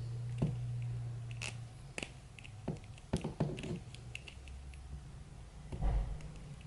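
Irregular light clicks, scrapes and crinkles of an action figure's plastic packaging being handled and opened, over a steady low hum.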